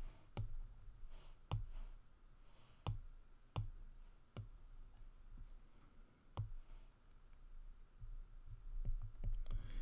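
Stylus tapping and scratching on a tablet screen: a handful of sharp taps at uneven intervals, with faint soft scrubbing strokes between them as digital ink is scribbled out and rewritten.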